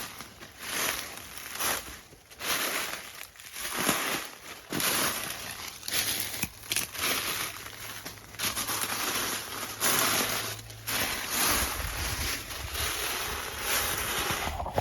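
Footsteps crunching on loose rock and gravel, about one step a second, each step a short scraping burst.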